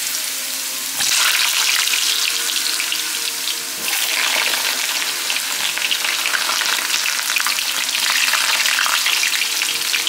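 Raw potato wedges deep-frying in hot oil in a frying pan: a dense, steady crackling sizzle. It surges suddenly about a second in and again near four seconds, as more wedges go into the oil.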